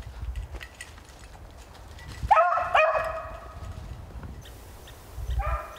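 Beagle baying in the bush: two long, drawn-out barks close together a little over two seconds in and a shorter one near the end, the hound giving tongue as it works a snowshoe hare's track.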